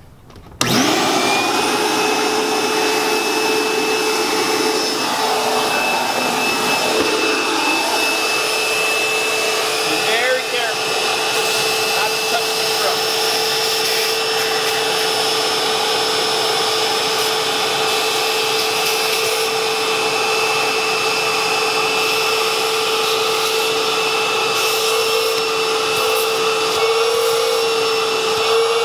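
Portable vacuum cleaner switched on about half a second in, spinning up and then running steadily with a constant whine as its hose sucks debris out of the inside of a colour laser printer.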